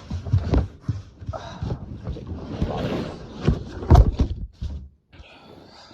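Unboxing handling noise: irregular rustling of packaging with scattered knocks and bumps, the loudest knock about four seconds in, dying away a second later.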